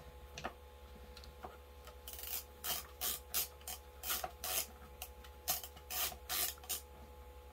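About a dozen short rasping strokes, two or three a second, starting about two seconds in, as a screw is turned by hand into an office chair's plastic armrest mount and fails to catch in its hole.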